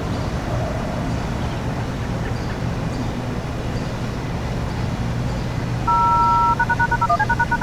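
Steady low rumble of street traffic. About six seconds in, a louder electronic siren activation signal starts: two tones held together for under a second, then a quick run of stepping paired tones, about ten a second. This is the tone signal that triggers the tornado siren.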